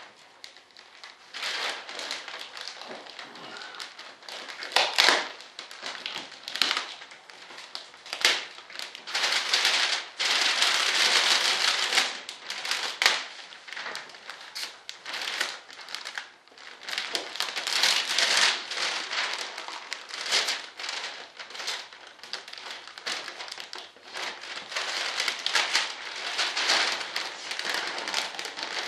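Clear plastic vacuum-bagging film crinkling and rustling as it is handled and pulled by hand, in irregular bursts.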